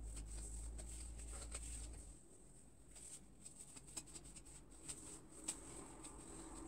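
Faint scattered ticks and crackles of a wide-tooth comb and fingers working through oiled natural hair, over a thin steady high whine and a low hum that drops away about two seconds in.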